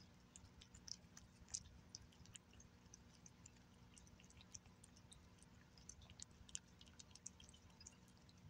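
Cat eating wet whitefish and tuna off a glass saucer: faint, irregular little clicks and smacks of licking and chewing, several a second.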